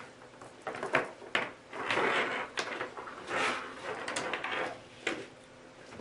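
A chain of Wago lever clamps joined by short copper wires being handled: irregular sharp plastic clicks and clatter, with rustling between them.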